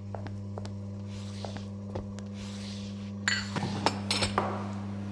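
Café counter sounds as coffee is made: a steady low electric hum under light clinks of cups and dishes, with a couple of short soft hisses early on and a busier run of clinks after about three seconds.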